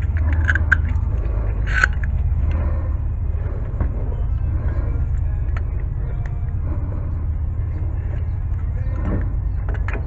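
A steady low rumble, with a few light metal clinks as a C-clamp and an old brake pad are handled against a brake caliper.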